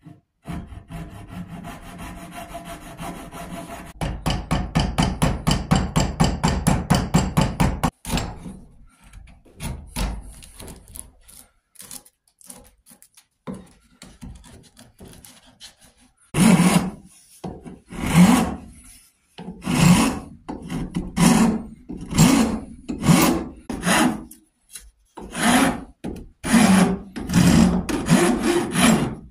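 Hand tools cutting an arrow rest into a red oak bow handle held in a vise. A small hacksaw saws the wood in fast, even strokes, about five a second. After that come scattered light scrapes of a chisel paring out chips, and from about halfway on a file is drawn across the wood in strong, regular strokes.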